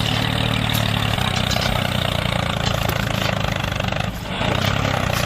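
A small motor running steadily with a low, pulsing hum, dipping briefly about four seconds in.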